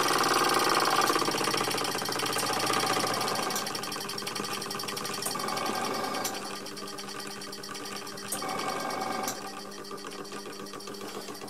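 Dereham Bowman M135 model steam engine running slowly and smoothly on compressed air: a rapid, even mechanical beat that gets quieter over the first few seconds, then holds steady.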